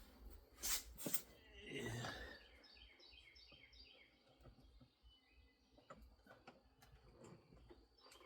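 A bird chirping in the background: a quick run of short notes, each dropping in pitch, lasting about two seconds. Around it are a few faint clicks and knocks of handling, the sharpest near the start.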